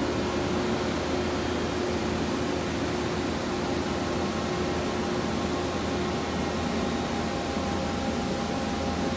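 Steady whirring hum with a few faint steady tones from a powered-up Toyoda FA-550II horizontal machining center, its electrical cabinet's drives and cooling fans running.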